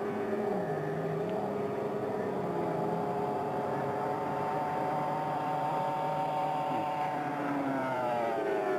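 Racing powerboat engines running hard out on the water, several at once, their pitches wandering. Near the end the engine notes slide down together as a boat passes.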